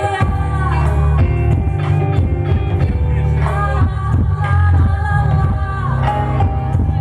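Live rock band playing loudly, with sung melody lines over a heavy, steady bass.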